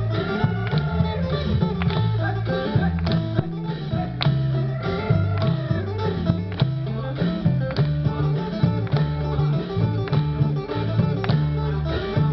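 Isan ponglang ensemble music: a plucked phin lute melody over a repeating bass line, with frequent drum and cymbal strikes.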